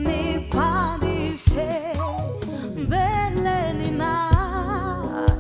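A woman singing a gospel song, her voice wavering on held notes, over instrumental backing with a few sharp hits.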